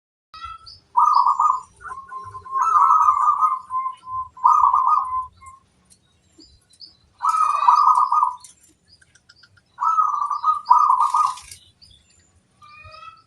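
Zebra dove (perkutut) cooing in about six short phrases with gaps between them, one phrase running longer, about two seconds.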